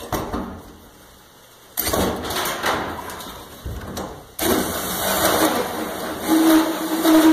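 Electric drill driving a hole saw through the metal floor of a pickup bed. It cuts in two spells: a run starting about two seconds in that fades off, then a steadier run from about four seconds in, with a steady tone near the end.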